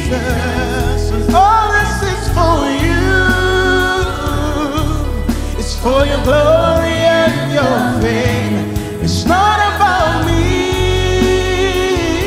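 Live gospel worship music: several singers holding long, slow sung phrases over a live band, with a steady bass underneath.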